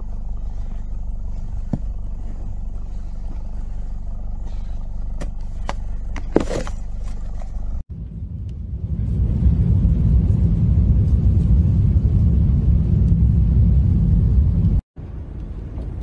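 Steady low rumble of blizzard wind buffeting the microphone, heard in separate stretches broken by abrupt cuts about eight seconds in and near the end, the middle stretch louder. A short high-pitched sound stands out a little past six seconds.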